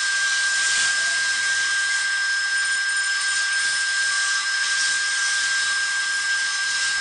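A steady high-pitched whine over an even hiss, holding at one level without rising or falling.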